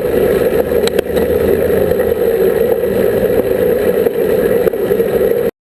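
Street traffic with a vehicle engine running steadily close by. The sound cuts off suddenly near the end.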